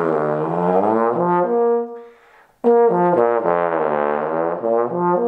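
Bass trombone playing a lip-bending range exercise: two phrases that step between notes and then bend the pitch smoothly down and back up, with a short break about two seconds in.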